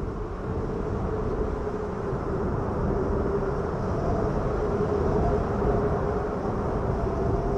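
Howling snowstorm wind: a steady low rumble with a held whistling tone on top, swelling a little over the first few seconds.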